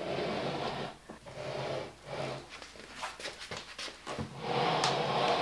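Hardcover books being slid along a wooden shelf: a few rough scraping pushes, the longest near the end.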